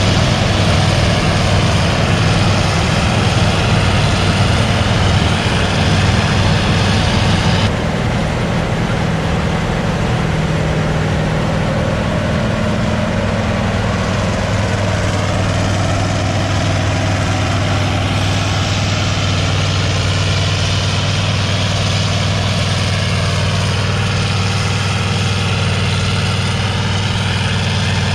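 Heavy diesel engine of farm harvest machinery running steadily with a low hum. The sound shifts abruptly about eight seconds in, losing much of its higher hiss.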